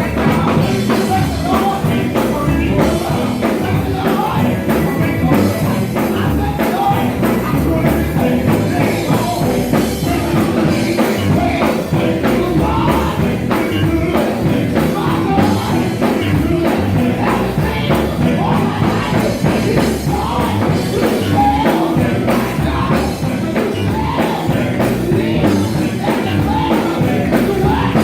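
A live gospel quartet band playing an upbeat number, with electric guitar, bass and keyboards and singing over them.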